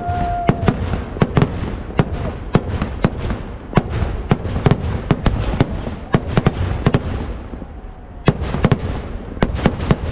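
Kerala temple-festival fireworks (vedikkettu): rockets and aerial shells going off in a rapid, irregular string of loud bangs, about two or three a second, over a constant low rumble. A steady whistle stops about half a second in, and the bangs thin out briefly about eight seconds in before picking up again.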